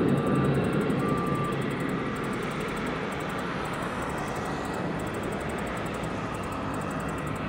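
Jet engines of a Ryanair Boeing 737 climbing away after takeoff: a steady rumble that fades over the first two seconds, then holds at a lower level as the aircraft recedes.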